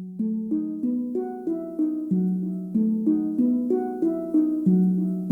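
Intro music: a plucked, harp-like melody of evenly spaced notes, about three a second, in a repeating pattern.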